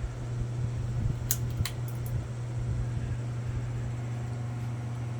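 42-inch Harbor Breeze Armitage ceiling fan running steadily on high, with a constant low buzzing hum that the owner puts down to a missing seal in the fan. Two short clicks about a second and a half in.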